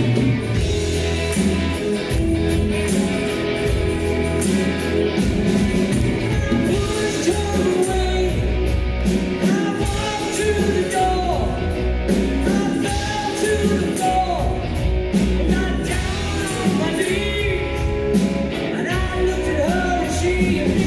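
Live rock band playing a song: a woman singing lead over electric guitars, bass guitar and drums keeping a steady beat.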